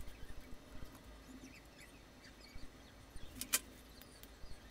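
Faint small clicks and scratching as fingers and a small pick handle a three-wire plastic connector, its pins being swapped around. Two sharp clicks come about three and a half seconds in.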